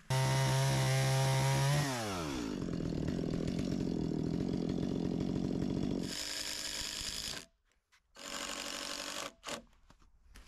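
A handheld power tool starts suddenly at full speed and holds a steady whine, then its pitch drops sharply after about two seconds as it comes under load and runs on rougher. Two shorter runs follow near the end, separated by a brief pause.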